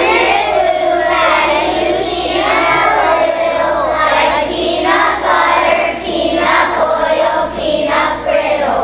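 A group of second-grade children singing together in unison, holding long notes.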